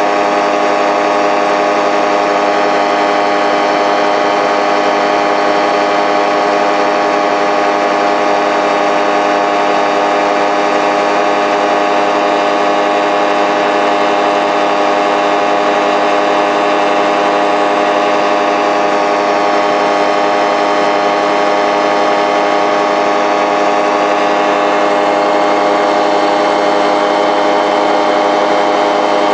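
Powered paraglider engine and propeller running steadily at cruise throttle in flight, a loud, even drone with no change in speed.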